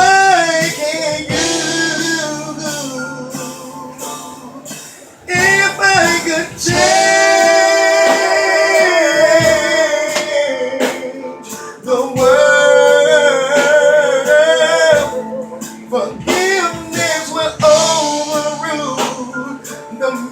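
Slow ballad singing over guitar accompaniment: long held, wavering sung notes in several phrases, with no clear words.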